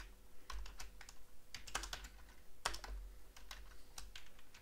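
Typing on a computer keyboard: irregular keystrokes in short quick runs.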